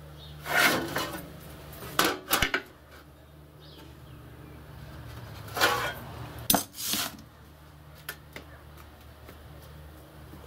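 Steel tools and sheet steel handled on a sheet-metal bender: an engineer's square slid and lifted off the steel sheet in four short groups of clanks and scrapes, then two light ticks. A low steady hum runs underneath.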